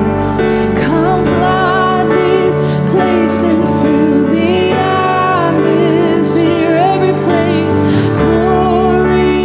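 A woman and a man singing a worship song together over sustained keyboard chords.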